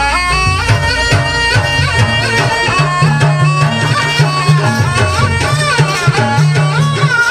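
Traditional Banyuwangi barong accompaniment: a reedy wind instrument plays a wavering, bending melody over steady hand-drum and gong-like beats.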